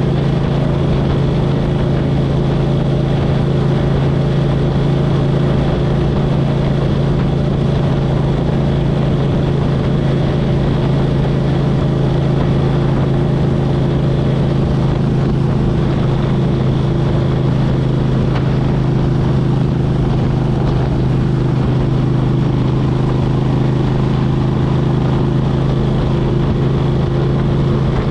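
2003 Suzuki Intruder 1400's V-twin engine running through Vance & Hines Classic exhaust pipes at steady revs, with no change in engine note.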